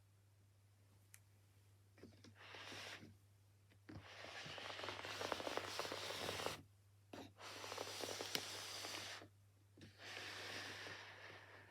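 Cardboard LEGO set box being handled and opened: scraping, rustling and tearing of the packaging in four stretches of one to two and a half seconds, the longest in the middle.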